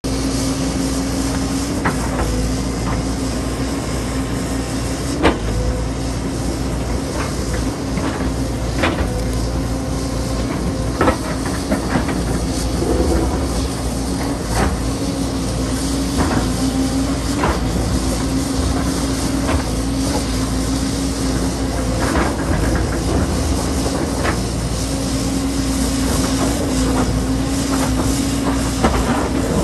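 JCB tracked excavator's diesel engine and hydraulics running steadily under load, a constant drone with a held tone, while rock knocks and clatters every second or two as the bucket works the loose slope, with the sharpest knocks about five and eleven seconds in.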